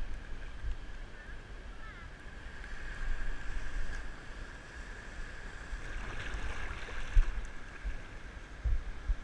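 Surf sloshing around a wader standing in shallow sea water, with wind buffeting the action-camera microphone in low thumps. A steady thin high whine runs underneath.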